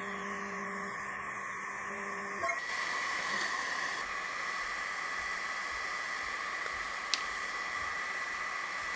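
Low steady hum of a diode laser engraver at work, stopping abruptly about two and a half seconds in, over a steady hiss with a faint high whine that runs on; one small click about seven seconds in.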